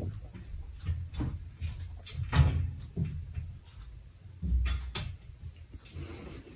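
Metal clothes-drying rack knocking and rattling irregularly as a cat clambers across its rails, with louder thumps about two and a half seconds in and again near five seconds.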